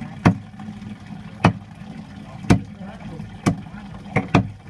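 Cleaver chopping through a duck neck on a wooden cutting board: six sharp chops about a second apart, the last two in quick succession, over a steady low hum.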